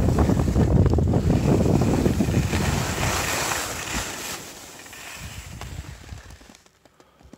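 Wind buffeting a phone's microphone with a rushing hiss during a ski run. The noise eases off and dies away sharply near the end as the movement stops.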